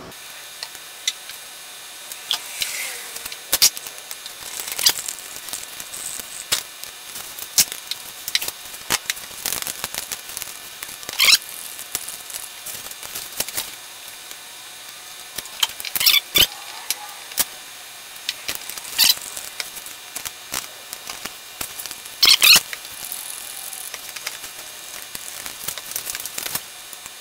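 Plastic squeeze bottles and plastic cups being handled on a steel workbench: scattered clicks, taps and knocks as bottles are picked up, squeezed and set down, with a few louder sharp knocks about 11, 16 and 22 seconds in.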